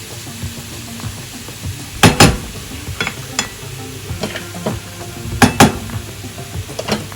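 Cauliflower rice with chicken and pork sizzling as it fries in a pan, with spatulas knocking and scraping against the pan as it is stirred. The loudest sounds are two quick pairs of sharp knocks, about two seconds in and again about five and a half seconds in.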